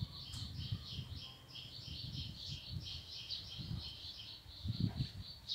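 A small bird chirping rapidly and continuously in short, high, two-pitched notes, several a second, over irregular low rumbling.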